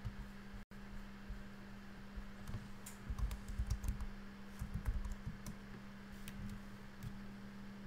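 Typing on a computer keyboard: a run of irregular keystrokes from about two and a half seconds in until about seven seconds in, over a steady low hum.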